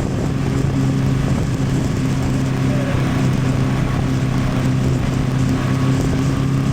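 Honda Transalp 750's parallel-twin engine running at a steady cruise, holding one even pitch, mixed with wind and road noise on an action camera's built-in microphone.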